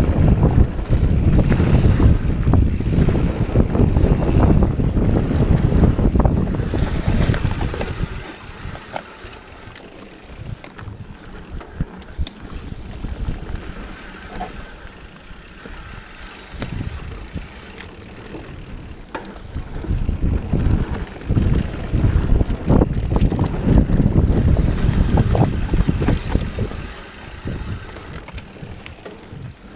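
Wind buffeting the camera microphone over the rumble and rattle of a Santa Cruz Hightower 27+ mountain bike descending a dirt trail, with scattered knocks from the tyres and frame over bumps. The rumble is loud for the first several seconds, eases through the middle and builds again later as speed picks up.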